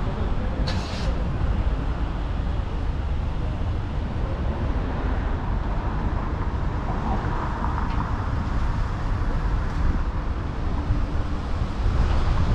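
City street traffic: a steady low rumble of cars passing on the road, with wind on the microphone and a short hiss about a second in.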